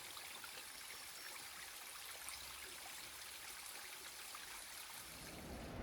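Faint, steady rushing of a stream.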